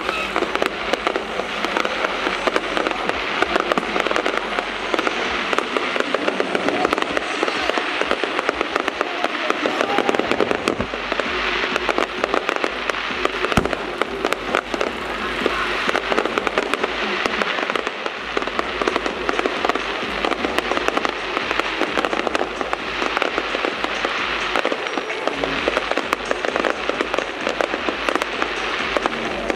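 Aerial fireworks display, many shells bursting and crackling at once in a dense, continuous barrage of pops and crackles.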